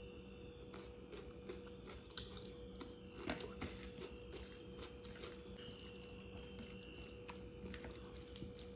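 Fingers mashing and mixing cooked rice on a plastic plate: faint, irregular soft clicks and squishes, the loudest about three seconds in, over a steady faint hum.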